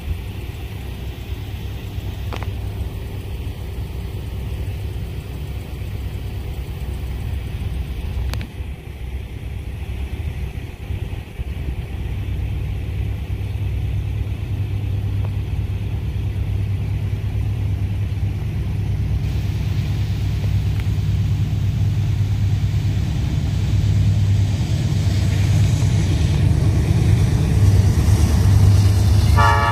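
Norfolk Southern train approaching: the low rumble of its diesel locomotives grows steadily louder, and the horn starts to sound right at the end.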